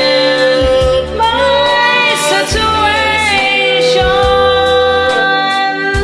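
Karaoke music of a slow ballad: a melody of long held notes over a bass line that comes in as a repeated low note every second or so.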